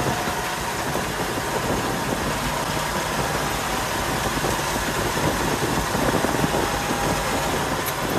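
1954 Dodge M37 military truck's flathead six-cylinder engine and drivetrain running steadily, heard from inside the cab, with a faint steady whine above the engine noise.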